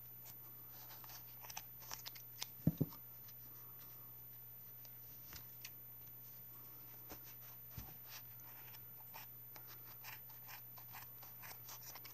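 Scissors snipping through a tightly packed bundle of fluffy wool yarn: the loops of a pompom being cut, a series of faint, irregular snips. There is a dull knock about two and a half seconds in and a softer one near eight seconds.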